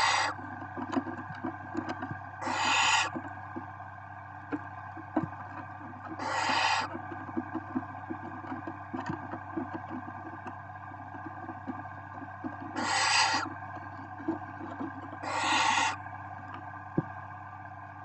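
Barn owl chicks giving rasping, hissing snore calls, the food-begging call of nestlings, five times at intervals of a few seconds, each about half a second long. Between the calls, faint scratching as the chicks shift on the nest floor, over a steady low hum.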